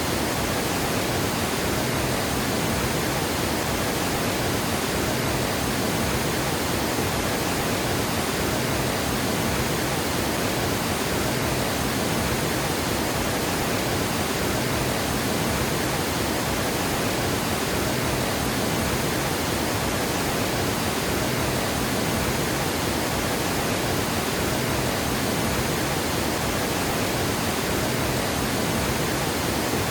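Water gushing over a dam spillway, a steady, dense rushing roar with no breaks or changes.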